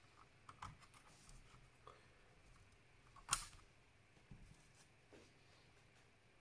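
Faint scattered clicks and taps of small parts and tools being handled while a laptop is taken apart, with one sharp, louder click about three seconds in.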